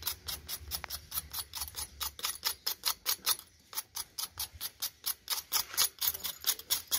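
Knife blade scraping the charred, burnt skin off a fire-roasted yellow yam in quick, regular strokes, several a second.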